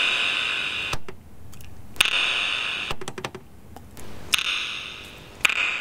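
Sharp clicks about once a second, with a quick cluster about three seconds in, each followed by a ringing echo that fades over about a second: the clicks played through the JVC RX-1001V receiver's digital reverb as its liveness setting is stepped.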